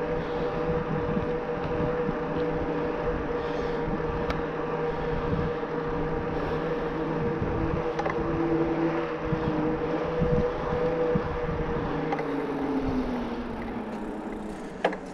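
Bosch Performance Line e-bike motor whining steadily under assist, over a rough rumble of wind and riding noise. Toward the end the whine slides down in pitch and fades, and a sharp click comes just before the end.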